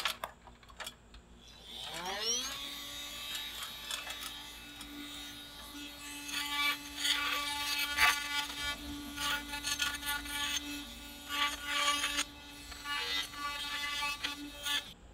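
A handheld cordless power tool spins up about two seconds in, its whine rising and then holding steady. From about six seconds on, rough grinding bursts come and go as it shaves the corner off a wooden post to chamfer it.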